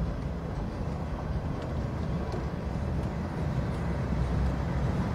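Freight train boxcars rolling past: a steady low rumble of steel wheels on the rails.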